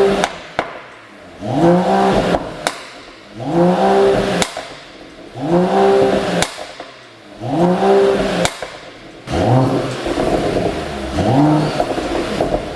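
Mercedes-AMG E53's turbocharged 3.0-litre inline-six revved in repeated blips about every two seconds, each rise in pitch followed by sharp exhaust pops and crackles as the revs drop, the sound of a pop-and-crackle exhaust tune. About nine seconds in the blips become shorter and quicker.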